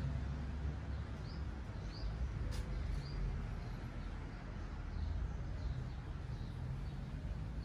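Outdoor ambience: small birds give short, high chirps about once a second over a steady low hum, with a single faint click about two and a half seconds in.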